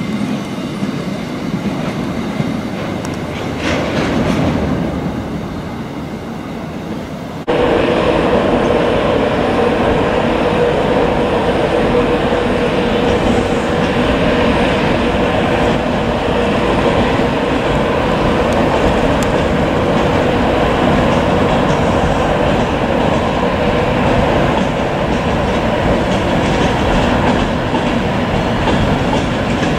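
Hopper wagons of a freight train rolling past on the track; then, from about seven seconds in, a louder sound: a Class 66 diesel locomotive's two-stroke V12 engine running steadily with a held hum as it slowly hauls a train of wagons.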